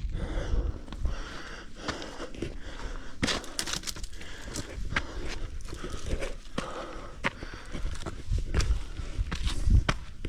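A hiker's heavy breathing. From about three seconds in come many footsteps, scuffs and knocks on rock and loose stone as he scrambles uphill.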